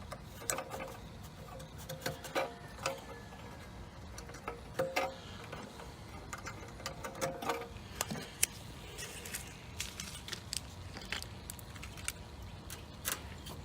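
Scattered clicks, taps and light metallic rattling of hand tools and small parts being handled, over a steady low background noise.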